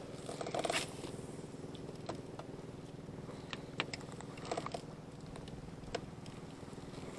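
A small engine puttering steadily, with a few light knocks and clicks, once about a second in and a handful more later on.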